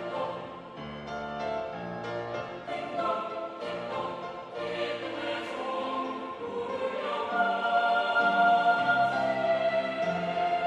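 Church choir singing an anthem in several parts, swelling to a louder, held chord about seven seconds in.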